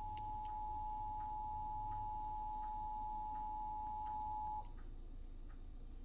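Emergency Alert System attention signal: a steady two-note electronic tone that cuts off sharply about four and a half seconds in, the signal that an emergency warning message follows.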